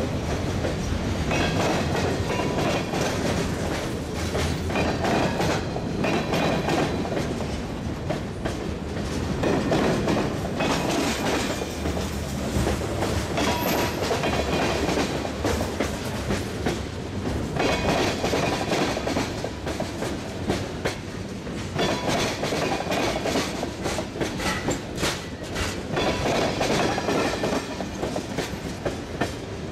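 Freight cars of a BNSF manifest train rolling past close by: a steady rumble of steel wheels on rail, with a continuous run of clicking and clattering as the trucks pass.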